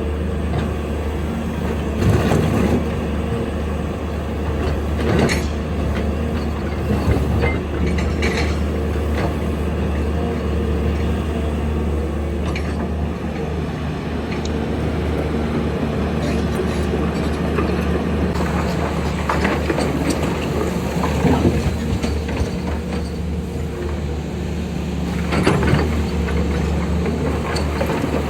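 Heavy hydraulic excavator's diesel engine running steadily under load while digging, with occasional knocks and clanks from the working machine.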